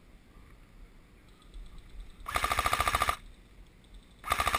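Airsoft rifle firing on full auto: a burst of about a second, about two seconds in, then a second short burst near the end, each a fast stream of shots over a steady whine.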